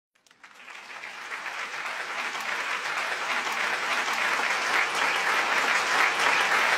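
Audience applause, fading in from silence and growing steadily louder.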